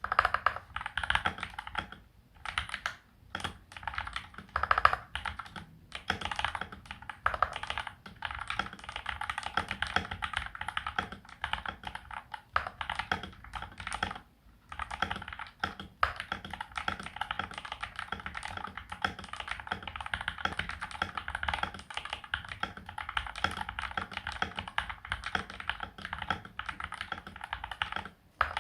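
Fast, continuous typing on an FL-MK870 mechanical keyboard with Gateron Milky Yellow Pro linear switches and PBT Cherry-profile keycaps, broken by a few brief pauses.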